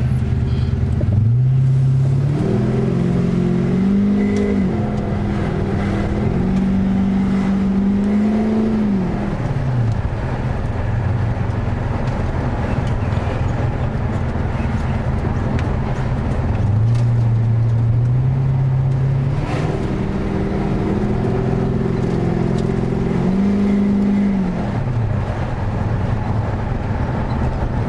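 Holden LS1 5.7-litre V8 with a new Comp Cams camshaft, driving on the road: the engine note climbs in steps as the car pulls away, then falls as the throttle comes off, twice.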